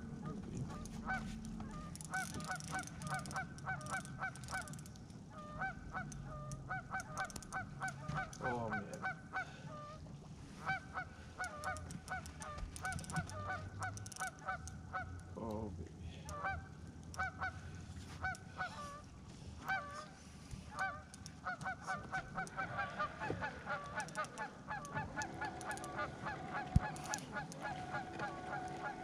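A flock of geese honking: many short calls, often several a second, coming in runs that stop and start again, over a faint low hum.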